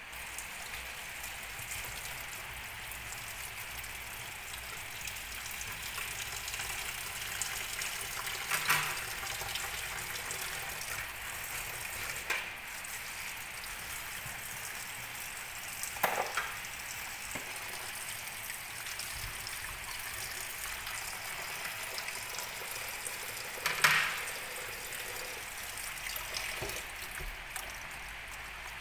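Kitchen faucet running into a stainless-steel sink while lettuce is rinsed by hand in a plastic basket: a steady splashing hiss of water, with three brief louder splashes spread through.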